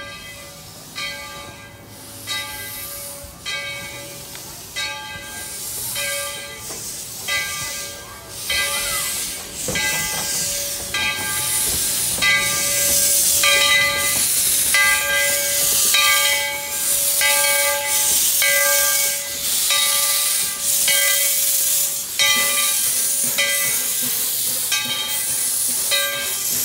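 Ten-wheeler steam locomotive's bell ringing steadily, about one stroke every second and a bit, while steam hisses from the cylinder cocks, the hiss growing much louder about ten seconds in as the engine draws close.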